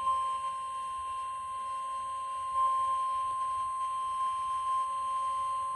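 Emergency alert attention tone, NOAA Weather Radio's 1050 Hz warning alarm tone: a single steady, high-pitched electronic tone held without a break, signalling that a flash flood warning is about to be read.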